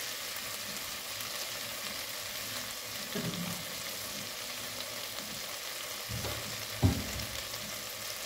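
Pieces of inhame (taro) frying in a pan, a steady sizzle throughout. Two soft knocks, one about three seconds in and a sharper one near seven seconds.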